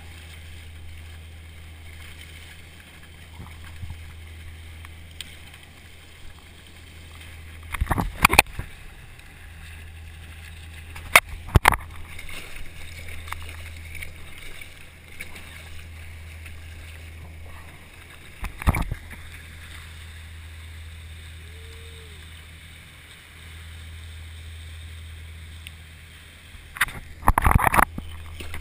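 Wake water rushing and hissing around a surfski's hull as it rides a dredge's wake wave, over a steady low drone. A few sharp, loud splashes hit, with the biggest cluster near the end.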